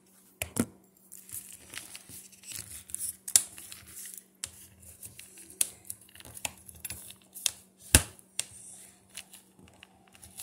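Plastic mac-and-cheese sauce pouch crinkling and crackling as it is pressed and smoothed against a countertop with fingers and a utensil handle to push the sauce into one corner. A few sharper knocks sound through it, the loudest about eight seconds in.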